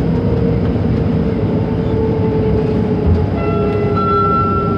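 Scomi/MTrans KL Monorail two-car train running, heard from inside the car: a steady rumble with a motor whine that slowly falls in pitch. A high steady tone joins about three and a half seconds in.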